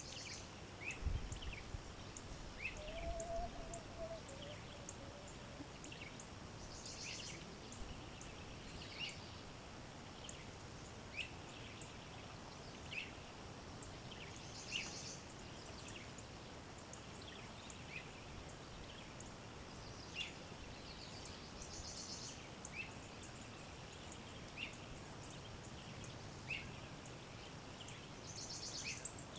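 Birdsong over a faint steady background hiss: one call is a short chirp repeated about every two seconds, another a high buzzy trill about every seven seconds. A few low bumps sound in the first few seconds.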